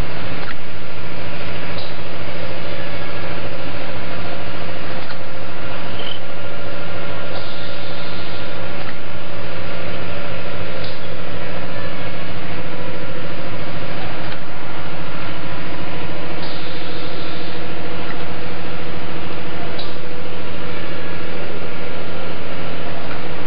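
Automatic textile screen printing machine running: a steady mechanical hum, with a sharp click now and then and two short hisses.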